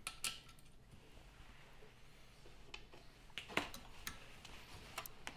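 Faint, scattered metallic clicks and taps from a valve spring compressor and a magnetic pickup working on a Honda K20 cylinder head as the split collets are lifted out and the spring compressor is handled.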